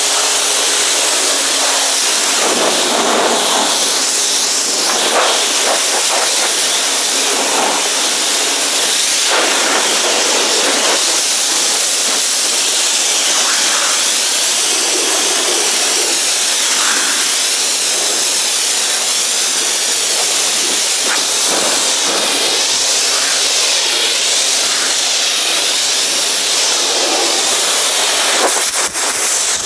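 Pressure washer spraying water onto a car's body: a loud, steady hiss of spray. The washer's pump hums under it at the start and again near the end.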